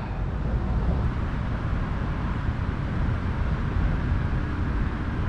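Steady traffic noise from an interstate highway bridge: an even rumble and hiss with no separate events.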